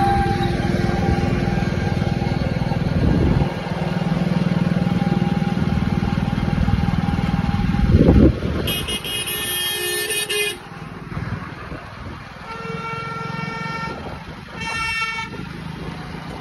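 Motor-vehicle engine and road noise in city traffic, with a short loud rush about halfway through. Vehicle horns then sound three times: one long blast of about two seconds, then two shorter ones near the end.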